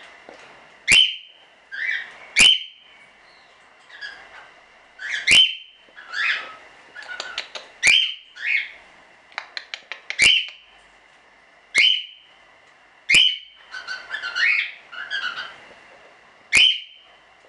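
Cockatiels calling: loud, sharp chirps every one to three seconds, each trailing into a short whistled note, with softer chattering between them.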